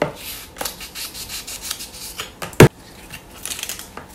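Knife scraping and peeling the tough skin off a boiled bamboo shoot: a run of short rasping strokes, with one loud sharp knock about two and a half seconds in.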